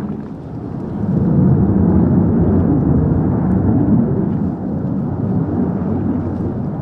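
Distant jet aircraft passing, a low rumbling roar that swells about a second in and slowly fades.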